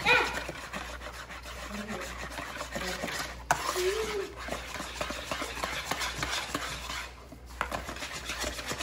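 Wire whisk beating pancake batter in a plastic bowl: a steady wet stirring and scraping of quick strokes, with one sharp click about three and a half seconds in.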